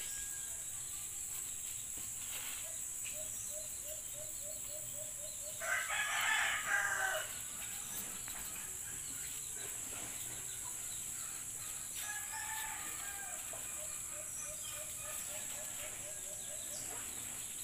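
A rooster crows once, about six seconds in, over a steady high-pitched drone. A faint, rapid series of ticks repeats before and after the crow.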